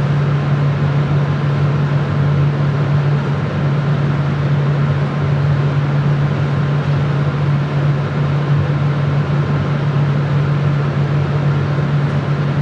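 Steady drone of a laminar-flow safety cabinet's blower running: an even rush of air noise over a constant low hum, with a faint steady whine above it.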